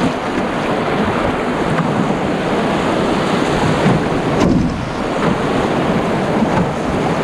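Whitewater of a shallow, rocky river rapid rushing, a steady loud rush of water.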